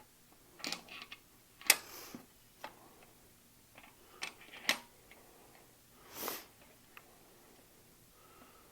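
Scattered sharp metallic clicks and knocks of a bottom bracket bearing press and its adapters being handled and seated against the frame, about half a dozen in all, with a brief soft rushing sound near six seconds in.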